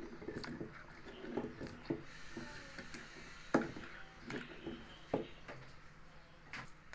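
Wooden pestle knocking in a wooden mortar while a metal spoon scrapes and stirs the chili paste. The knocks come irregularly, the loudest about halfway through.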